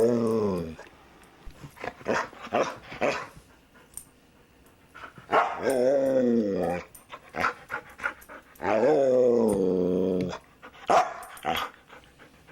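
Dog vocalizing in a talkative way: three long, drawn-out groaning calls, each sliding down in pitch, with shorter sounds from the dog between them.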